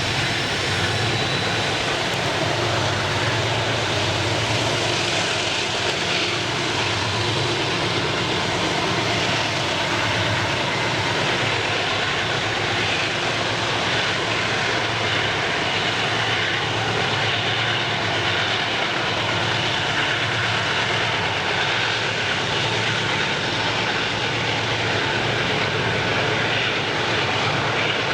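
Freight train rolling past: a steady, loud rush of wheels on rails with a constant low engine hum underneath.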